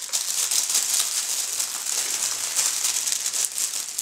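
Plastic parts bag crinkling and rustling continuously as it is handled and opened.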